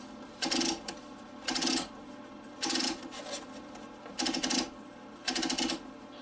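A TV turret tuner being turned by hand, its drum clattering through the channel detents in short rattling bursts about once a second, five times. The tuner's contacts are being wiped clean with a cloth as it turns.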